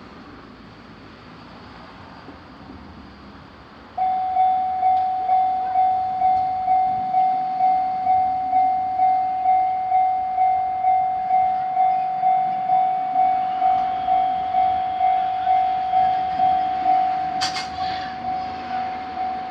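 Japanese railroad crossing warning bell starts about four seconds in and rings a steady, repeating tone about twice a second over low background noise. Near the end there is a brief sharp high-pitched sound.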